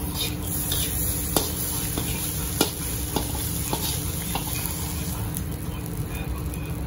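Metal wok ladle scraping and knocking against a steel wok while scooping fried rice out of it, about six sharp knocks roughly half a second apart, over a steady low rumble.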